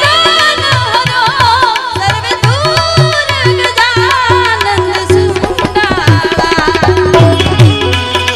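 Live Gujarati devotional bhajan: a woman singing to melodic accompaniment over a steady hand-drum beat.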